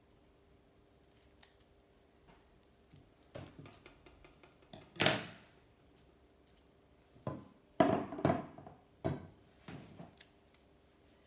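Handling noises of bike parts and tools: scattered light clicks, a loud scrape about five seconds in, then a run of sharp knocks and scrapes in the second half.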